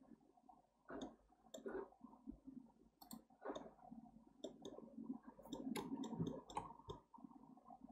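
Faint, irregular clicks of a computer mouse, about a dozen of them, coming thickest in the second half.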